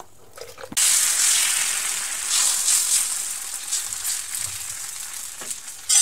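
Rice batter frying in a hot iron pan: a loud sizzle starts suddenly about a second in and slowly fades.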